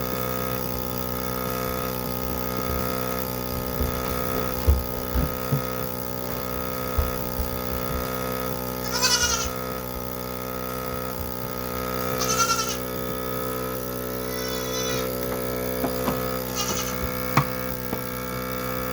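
Automatic goat milker's vacuum pump running with a steady hum while milking. Goats bleat about four times over it, and there are a few soft knocks early on.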